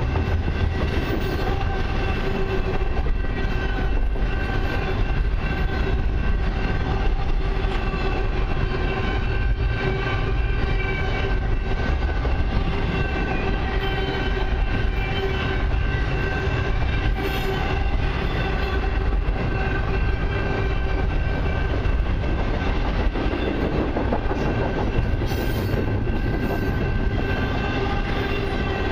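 Double-stack container well cars of a freight train rolling past: a steady heavy rumble of wheels on rail with irregular clicking from the rail joints, and a steady tone held over it throughout.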